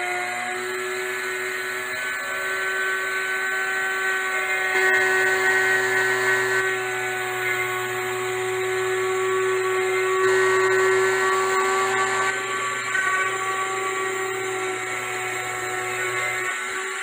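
RotoZip-style spiral-bit rotary tool running at high speed while its bit cuts through ceiling drywall around a pot light. A steady motor whine runs throughout, with two louder rasping stretches where the bit bites harder into the gypsum board.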